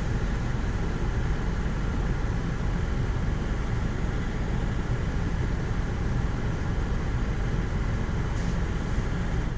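Automatic car wash machine running: a steady rumble with a dense whirring hiss over it, cutting off abruptly at the end.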